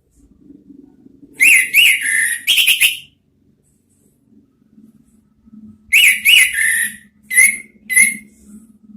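Orange-headed thrush singing: two loud bursts of quick whistled notes that rise and fall, the first about a second and a half in, the second about six seconds in, ending in two short separate notes. A faint low hum runs underneath.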